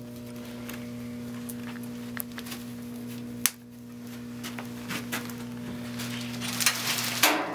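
Hands fastening a fabric bassinet basket onto its tubular metal frame: light handling noises and scattered small clicks, with one sharp snap about three and a half seconds in, over a steady low hum.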